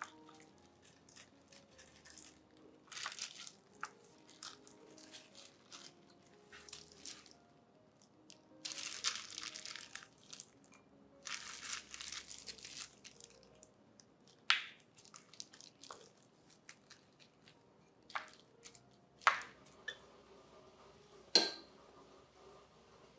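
Disposable plastic gloves crinkling and rustling while handling fruit over a plastic jelly mold, in several short stretches, with a few sharp clicks, the loudest near the end. Soft background music underneath.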